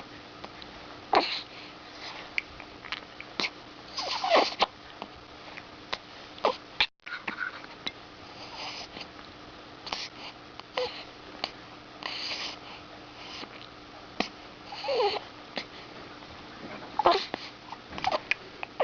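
Baby hiccupping: short, sudden hics every second or two, uneven in spacing, some carrying a small falling-pitch squeak of the voice.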